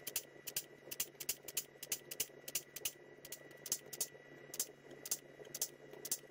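Pneumatic foot-pedal squeezer with dimple dies pressing dimples into the rivet holes of an aluminium RV-10 rudder skin, one hole after another: a quick run of sharp clicks about three a second. A steady faint hum runs underneath.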